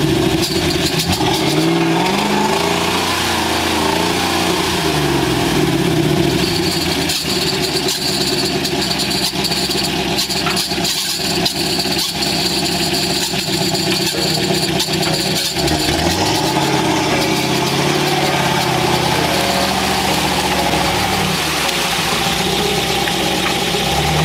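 Off-road army truck engine revving up and down as it drives through a flooded stream, with water splashing and churning around its big tyres. The splashing is heaviest in the middle stretch, and the revs climb again near the end as the truck pulls out.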